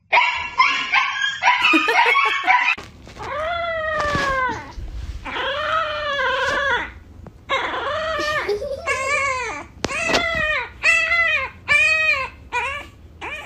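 A young French bulldog puppy howling: a string of arching howls, the first few long and drawn out, then shorter ones coming about once a second. It opens with a couple of seconds of short, sharp animal cries.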